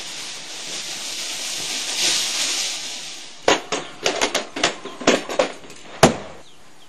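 A sparking fuse hissing for about three seconds, then a string of firecrackers going off: about a dozen sharp bangs in quick, uneven succession, ending with the loudest one.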